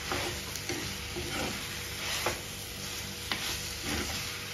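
Spatula stirring and pressing tomato, brinjal and shallots as they fry in an earthenware clay pot, cooking them down until soft. There is a steady sizzle, with a few sharp scrapes and knocks of the spatula against the pot.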